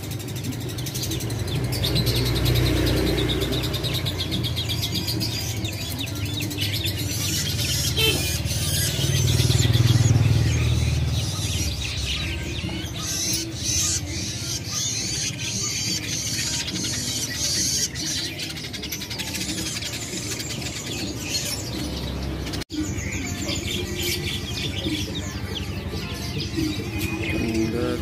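Many caged songbirds chirping, among them a cage of young long-tailed shrikes, over a low steady rumble of background noise that swells briefly about ten seconds in.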